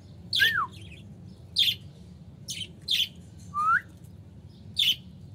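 Rose-ringed parakeet giving about six short, sharp shrieks, two of them with a whistled pitch glide. It is a lone caged bird calling for its missing cagemate.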